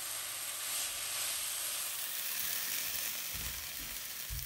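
Shredded potato sizzling steadily in a frying pan as it is stir-fried with a silicone spatula. Near the end the sizzle eases and there are a few soft low knocks.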